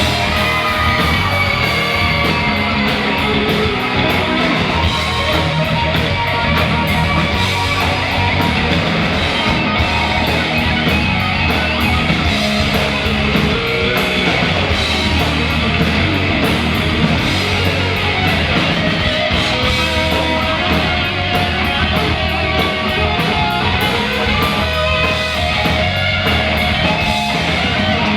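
Rock band playing loud, guitar-driven hard rock with electric guitar, bass and drums, an instrumental passage without vocals.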